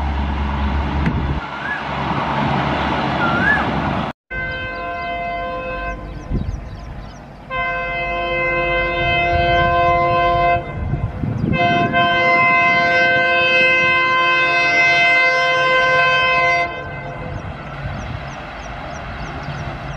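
Diesel passenger locomotive approaching at speed and sounding its horn: a fainter blast, then two long loud blasts, over the rumble of the running train. Before that, the low rumble of a passing train fades out.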